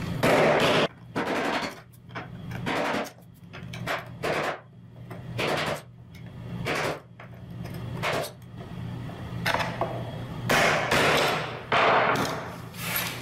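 Screwdriver tip scraping and chipping grout out of the joint between floor tiles, in a series of short, sudden gritty strokes. Near the end the strokes come closer together and run longer.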